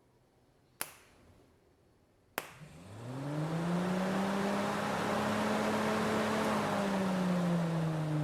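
Fiat Tipo electric radiator cooling fan, freshly cleaned and lubricated with its motor brushes serviced, run straight off 12 volts. Two sharp snaps as the power is connected, the second about a second and a half after the first. Then the motor spins up with a rising whine and settles into a steady whir with a strong rush of air and no plastic rattle.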